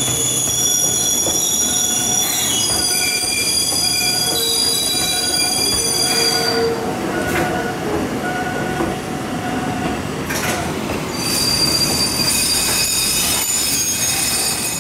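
Enoden train wheels squealing as the cars roll slowly round a tight curve: several high, steady squeal tones that die away about halfway through and come back strongly near the end. A shorter tone repeats about every 0.7 seconds underneath.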